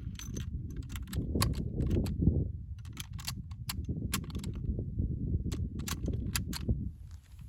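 Steady wind buffeting a phone's microphone, with many scattered sharp clicks and crackles over it.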